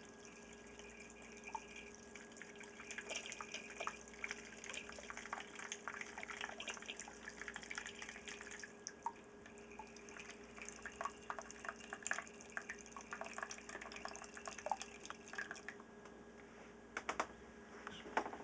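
Wort trickling and splashing from the brass spigot of a cooler mash tun into a plastic pitcher. This is the recirculation (vorlauf) of the first cloudy runnings, drawn slowly so the grain bed does not clog. A few louder knocks come near the end.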